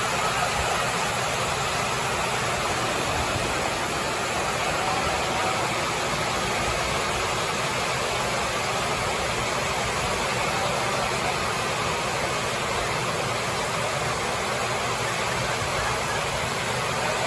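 Heavy rain on a metal barn roof, a loud, steady, even hiss with no let-up, from hurricane rain.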